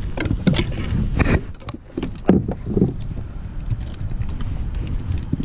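A few short knocks and rustles from handling a fishing rod in a kayak, the loudest a little over two seconds in, over a steady low rumble of wind on the microphone.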